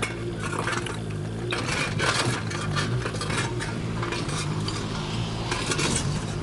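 Kubota KX019 mini excavator's diesel engine running steadily, with irregular bursts of clattering and clinking as broken masonry and rubble are moved and fall.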